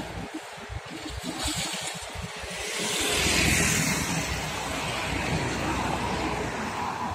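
Road traffic passing: trucks' engines and tyre noise on the road, swelling as a vehicle passes close about three and a half seconds in, then easing back to a steady rush.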